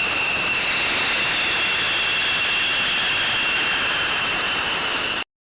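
Fighter jet's engine running: a loud rushing roar with a steady high-pitched whine over it, cutting off abruptly near the end.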